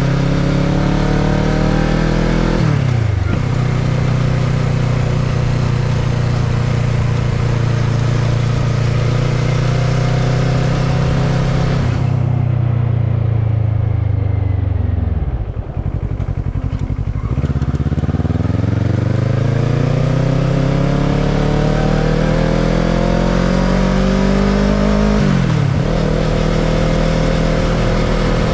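Kawasaki ER-6n's parallel-twin engine on a ride: the revs climb and drop sharply with an upshift about three seconds in, then hold steady. Near the middle the throttle closes and the revs fall away almost to idle. They then build through a long acceleration and drop again with another upshift near the end.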